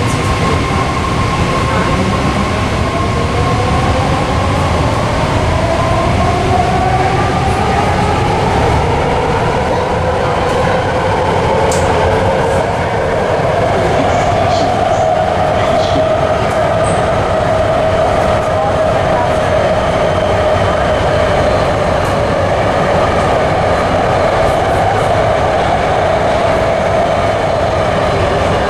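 BART Fleet of the Future car pulling out of a station and accelerating in a tunnel. The traction motors whine, rising in pitch for the first fifteen seconds or so and then holding steady, over constant rumble of wheels on track.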